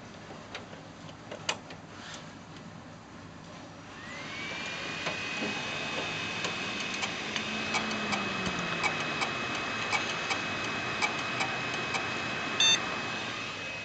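Desktop PC making noise as it starts: a high whine rises about four seconds in and then holds steady, with many irregular clicks, and one short loud beep near the end. The owner reports that the PC beeped and froze and now hangs at the motherboard brand screen.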